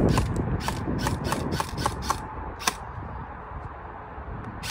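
Avalon Vegas Force M4 airsoft electric gun firing a quick, uneven string of about ten shots, each a sharp mechanical click from the gearbox, which stop under three seconds in, with one more click near the end. Wind rumbles low on the microphone throughout.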